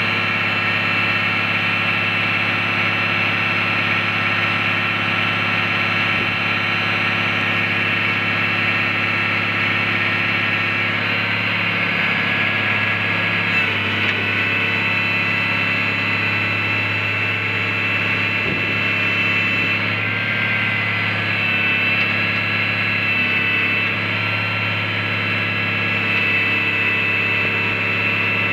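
Caterpillar diesel engine of a Ford 9500 boom truck running steadily to power the crane while its boom and hook are moved, with a steady high whine over the engine.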